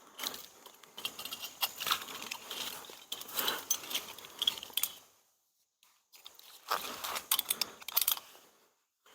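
Metal climbing gear being handled: scattered clinks, jingling and rustling. It drops almost to silence for under a second just past halfway, then the clinking picks up again.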